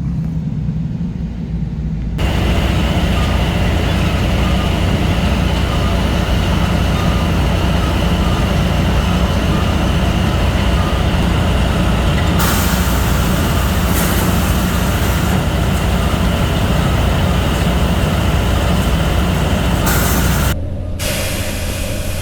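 Truck running, with a steady low engine drone and road noise; a brighter hiss joins about halfway through.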